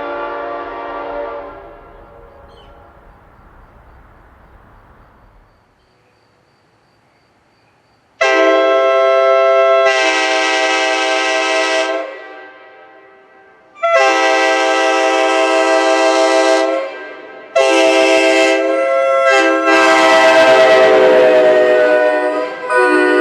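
A 1992 Nathan Airchime K5LA five-chime train horn sounding in long, loud blasts of a steady chord, the first about eight seconds in, then three more with short gaps. At the very start the previous horn's chord fades away.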